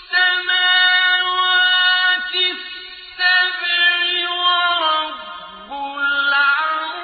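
Quran recitation: a single voice chanting Arabic verses melodically, holding long steady notes in three phrases, with a short break about two seconds in and a drop in pitch around five seconds.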